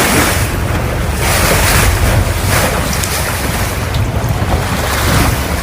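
Ocean surf: a steady rush of breaking water over a deep rumble, swelling and easing every second or so.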